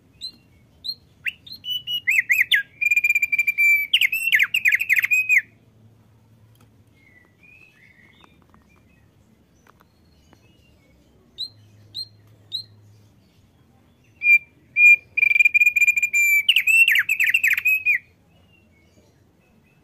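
Male opior paruh tebal (thick-billed heleia) singing in two bouts about six seconds apart. Each bout opens with a few short high notes, then runs into a held clear note and a string of quick warbled notes.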